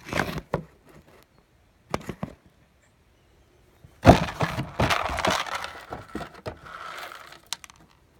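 Knocks and clatter of handling on wooden deck boards: a few sharp knocks, then a loud hit about four seconds in followed by about three seconds of rattling and scraping.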